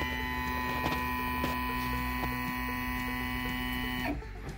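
Shapeoko Pro CNC router's stepper motors whining steadily as the carriage jogs along its freshly oiled linear rails. The whine cuts off suddenly about four seconds in, when the move ends.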